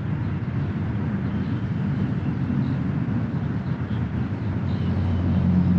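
A steady low engine rumble with a low hum in it, growing slightly stronger near the end.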